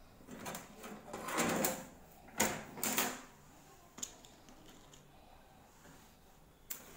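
Copper plates on a metal ring binder being handled and turned: a rustle of sliding and rubbing, then a few sharp clicks and knocks as the plates and the rings knock together, two loud ones close together a few seconds in and smaller ones later.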